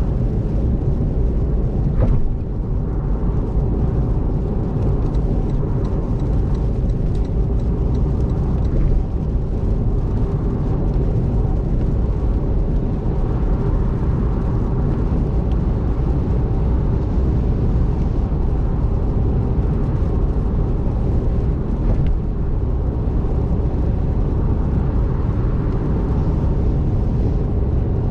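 Steady road noise of a car driving at speed on a rain-soaked expressway: wet tyre noise with a low, constant rumble and no change in pace.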